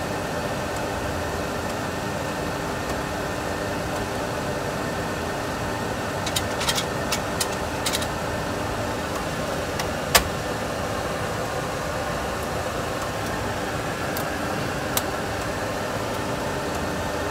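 Steady cockpit noise of a Boeing 737 Classic full flight simulator in the climb, an even rush with a few steady hum tones. A few light clicks come about six to eight seconds in and one sharper click about ten seconds in.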